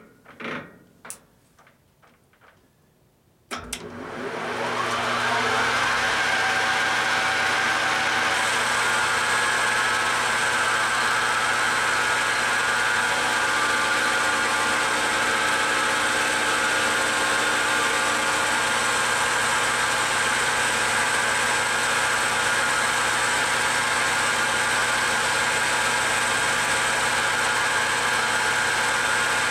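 Metal lathe switched on after a few clicks, about three and a half seconds in. It spins up with a rising whine and settles into a steady run at 1200 RPM while a carbide tool takes a light, dry finishing cut on an aluminum pulley blank.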